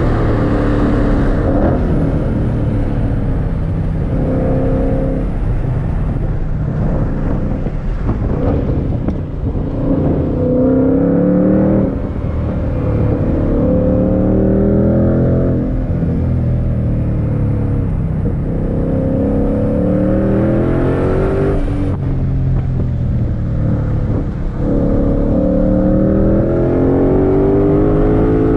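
2022 Ford Shelby GT500's supercharged 5.2-liter V8, heard from inside the cabin at track speed. The engine pitch climbs again and again under hard acceleration and drops off sharply at each shift and lift for braking.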